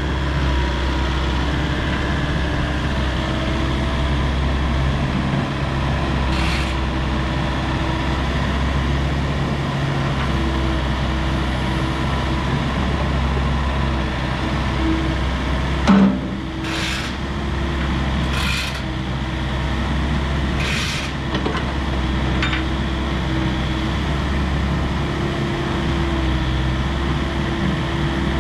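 Volvo ECR88D compact excavator working, its Volvo D2.6H diesel running steadily with a hum that shifts as the machine is loaded. There are short hisses a few times and a single sharp knock about halfway through.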